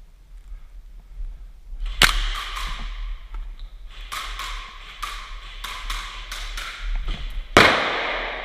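Airsoft guns firing single shots: sharp snapping cracks, a quick cluster about two seconds in, then more spread through the middle, and the loudest, with a trailing echo, near the end.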